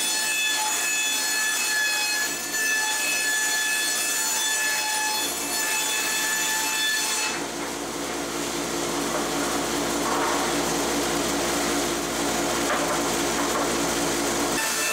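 Hitachi CB75F resaw bandsaw with a 3-inch, 1-tooth-per-inch blade ripping rough-sawn white oak boards, with a steady machine whine under a dust collector's rush. About seven seconds in the high whine drops away to a lower hum, and it comes back near the end.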